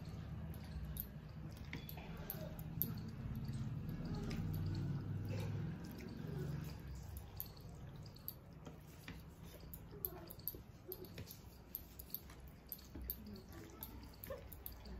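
Close-miked eating sounds: wet squishing and many small irregular clicks of fingers mixing rice with fish curry on plastic plates.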